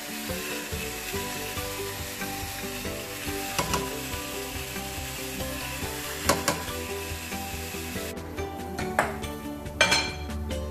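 Cream sauce sizzling in a frying pan, with a few sharp clicks, over soft background music with steady held notes. About eight seconds in, the sizzle stops abruptly and a couple of clinks follow.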